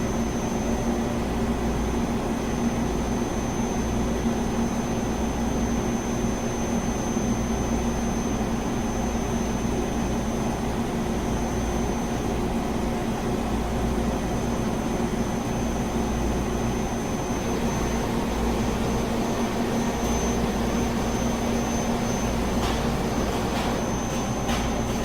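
Olympia CNC boring mill running: a steady machine hum and low rumble with a thin, high, constant whine, and a few sharp clicks near the end.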